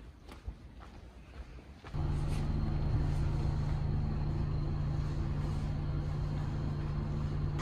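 A few faint footsteps on paving, then, about two seconds in, a steady hum with a low drone starts suddenly inside a riding elevator car.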